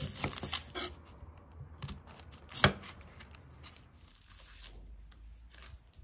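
A knife cuts through a dry-skinned onion on a wooden chopping board. The papery skin crackles in the first second, and about two and a half seconds in there is one sharp knock, the loudest sound, as the blade meets the board. After that come soft, intermittent scraping and crinkling sounds as the onion skin is peeled off with the knife.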